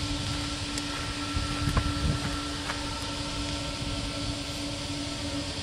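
Jet engines of a taxiing twin-engine widebody airliner running at idle: a steady whine with two held tones over a rushing hiss. Irregular low rumbles come and go, strongest about two seconds in.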